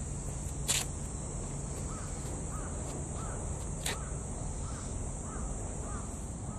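A bird calling in a run of about seven short calls, one roughly every half second, starting about two seconds in, over a steady low rumble. Two sharp clicks, one near the start and one about four seconds in.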